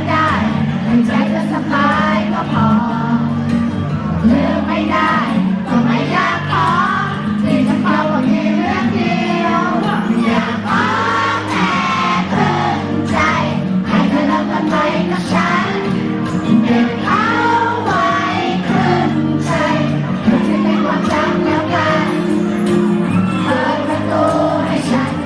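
A Thai pop song sung live over backing music.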